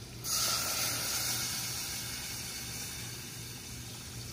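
Chicken stock poured into a hot pan of browned roux, hissing sharply as it hits about a quarter second in, then slowly easing off.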